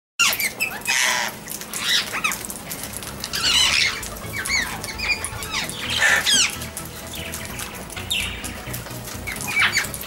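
Parrots calling: a run of harsh squawks and short shrill screeches that sweep quickly up and down in pitch, repeated every second or so.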